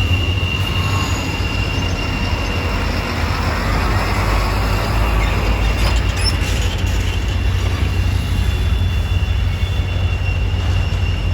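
Train running on the rail line with a strong low rumble and a steady, high-pitched wheel squeal.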